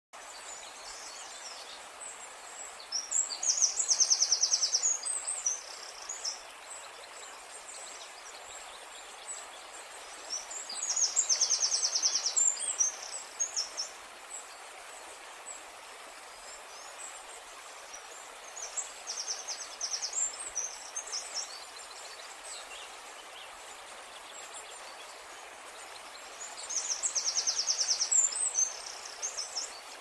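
A songbird singing a short, high, fast trill four times, about every eight seconds, over a steady outdoor hiss.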